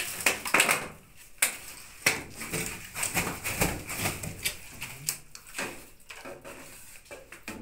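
Irregular knocks and clattering, with faint voices in between.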